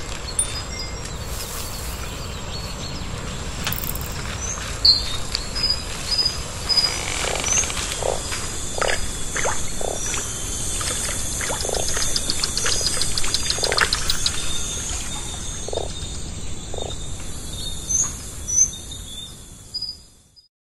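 Forest ambience: scattered short bird chirps and a high insect drone over a steady hiss, with a rapid ticking trill and short low calls in the middle. It fades out near the end.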